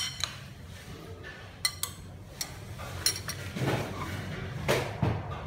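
Kitchen utensils and dishes clinking a few times during salad preparation, with two short scraping or rustling noises in the second half.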